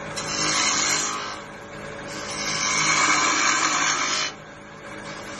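Wood lathe running with a steady low hum while a turning tool cuts the spinning wood blank in two passes, each a loud hissing scrape of shavings coming off. The second cut is longer and stops abruptly about four seconds in.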